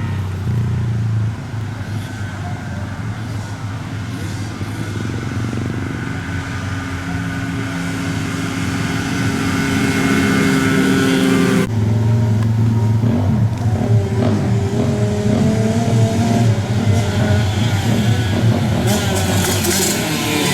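Several small off-road racing engines running and revving on a dirt flat track, their pitch rising and falling as the machines go around. The sound changes abruptly about halfway through.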